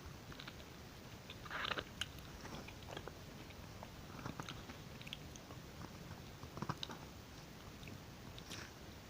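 Quiet, close-up eating sounds: soft, wet chewing of strawberries and yoghurt, with scattered small clicks and smacks of the mouth.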